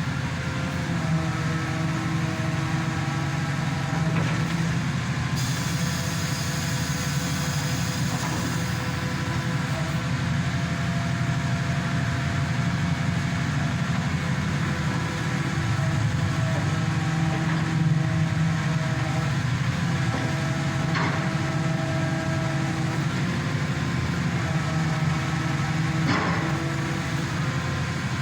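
Diesel engine and hydraulic pump of a hydraulic static pile driver running steadily, with a pump whine that shifts in pitch now and then as the jack works. A high hiss comes in for a few seconds about five seconds in, and there are a couple of light knocks near the end.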